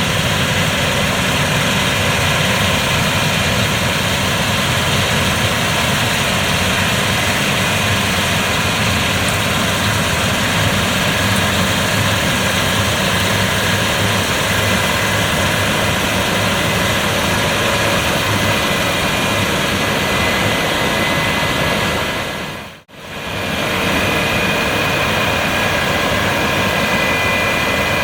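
Claas Lexion 7700 combine harvester running steadily at work: a constant engine and threshing-machinery din with a high whine. The sound cuts out for an instant about 23 seconds in, then carries on unchanged.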